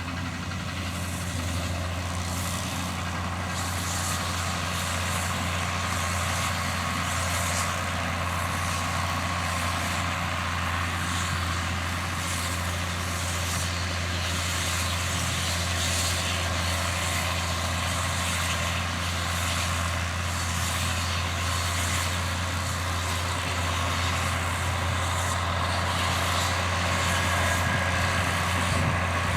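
John Deere 7710 tractor's diesel engine running steadily under load while it pulls and drives a Krone round baler-wrapper, with a deep, even hum and mechanical hiss from the working machinery. It grows slightly louder near the end.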